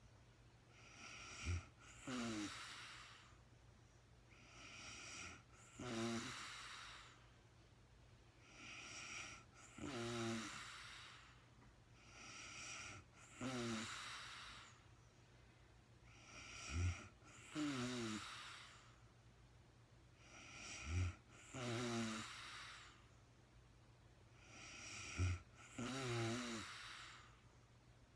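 A sleeping woman snoring steadily, seven snoring breaths about one every four seconds. Each is a brief sound followed by a longer breath that carries the snore.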